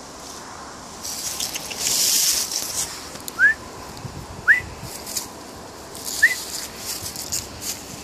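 Dry fallen leaves rustling and crackling as a small dog noses and steps through them, loudest for a couple of seconds after the first second. Four short, high rising chirps come at intervals over the second half.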